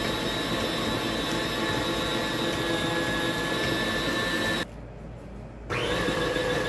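Electric tilt-head stand mixer running steadily with a motor whine, beating carrot cake batter. About two-thirds of the way through it cuts off abruptly, then after about a second starts again and winds back up to speed.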